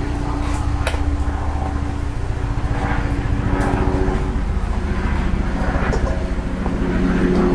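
A steady low mechanical hum throughout, with a few light clicks and faint scratching as a utility knife scores a plastic car diffuser.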